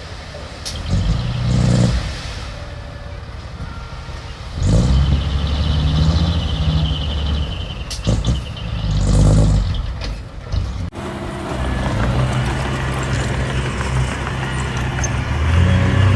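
Diesel engine of earthmoving machinery revving up and easing off in repeated surges, with a few sharp knocks, and an abrupt break about eleven seconds in.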